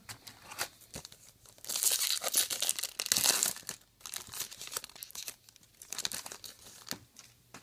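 Foil trading-card pack wrapper being torn open and crinkled by hand, loudest for a couple of seconds about two seconds in, with softer rustling of the foil and cards around it.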